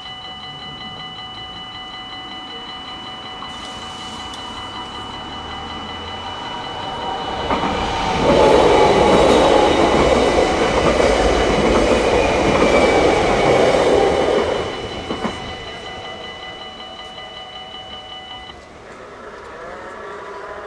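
Dutch level-crossing bells ringing rapidly and steadily while an NS passenger train passes. The train's rush swells to the loudest part about eight seconds in, lasts about seven seconds, and ends with a few sharp clacks. The bells stop about two seconds before the end as the crossing clears.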